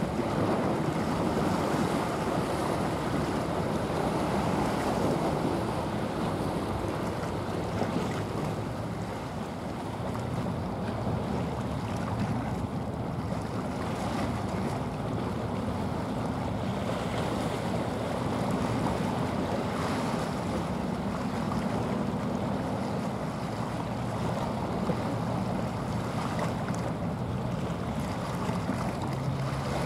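Wind on the microphone and water washing along the shore, steady throughout, under a low engine hum from passing vessels that is clearest in the middle and near the end.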